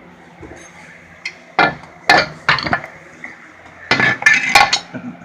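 Hammer blows on metal, six sharp ringing strikes in two groups of three, driving out a stuck lower control arm bolt.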